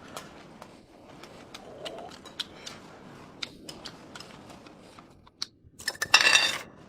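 Quiet table eating sounds: chewing and small scattered clicks of chopsticks against dishes, with a louder, brief noisy burst about six seconds in.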